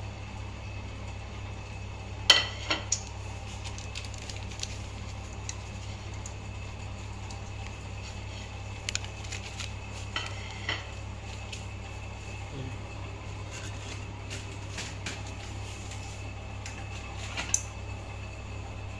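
Kitchen utensils clinking and knocking against a pan and dishes in a few short, separate strikes. The loudest comes about two seconds in, more follow around nine to eleven seconds, and one comes near the end. A steady low hum runs underneath.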